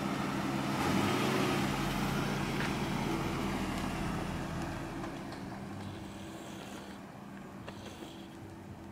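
Lexus IS300's inline-six engine running as the car pulls away and drives off, growing fainter as it goes, with a brief rise in engine pitch about a second in.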